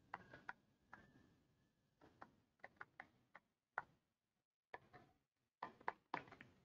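Faint, irregular clicks and taps of a stylus tip on a pen tablet while words are handwritten, over near silence.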